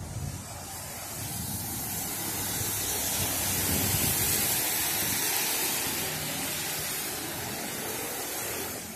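A rushing hiss that swells to its loudest about four seconds in, then slowly fades.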